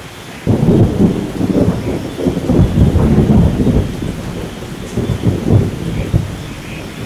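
Thunder over steady rainfall. A clap breaks about half a second in and rumbles heavily for a few seconds, swells again around five seconds, then fades back under the rain.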